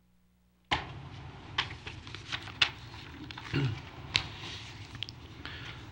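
Rustling and handling noise with a number of sharp clicks, close to the microphone; it starts suddenly just under a second in.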